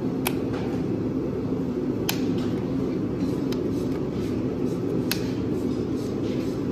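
Hoof nippers snapping through an overgrown horse's hoof wall during a trim: four sharp clicks one to two seconds apart, over a steady low background hum.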